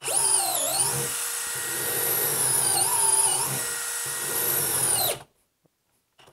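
DeWalt 12V Xtreme hammer drill in drill mode on speed 2, boring a hole into a pine board. The motor's steady whine dips in pitch as the bit loads up, about half a second in and again around three seconds, then stops about five seconds in.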